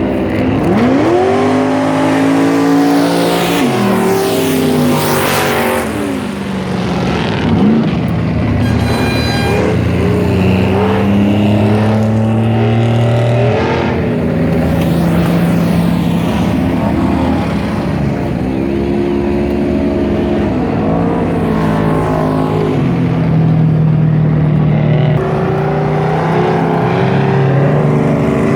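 Off-road vehicle engines revving hard under load, their pitch climbing and dropping again and again, with more than one engine running at once.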